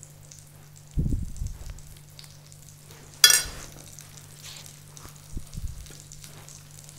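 Kitchen handling sounds as a spoon spreads meat filling on puff pastry: a dull thud about a second in and one sharp clink with a brief ring, a metal spoon against a glass bowl, about three seconds in, then a few soft knocks. A faint sizzle of pastries frying in hot oil runs underneath.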